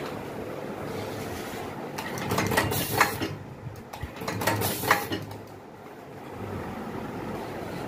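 Automatic data-cable soldering machine running with a steady hum. Its pneumatic cylinders fire in two short spells of sharp clicks and air hiss, one about two to three seconds in and another near five seconds.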